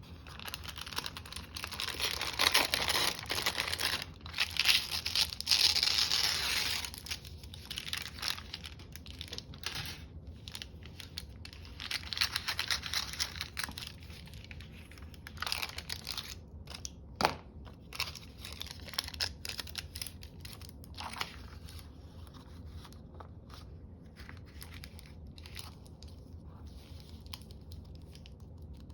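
Paper rustling and crinkling as sheets are handled, dense for the first several seconds, then scattered rustles and light taps, with one sharp click a little past the middle.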